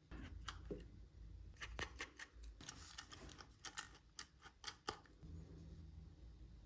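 An irregular run of about a dozen light, sharp clicks and taps over the first five seconds: small hand tools and parts being handled while an iPhone SE is taken apart.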